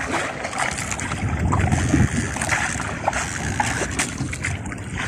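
Wind buffeting the microphone over choppy water splashing and slapping against a small outrigger boat's hull, with a steady low rumble and no engine note.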